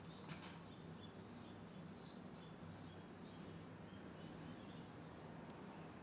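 Near silence: a faint steady low hum, a couple of soft clicks right at the start, and a scatter of short, faint high chirps.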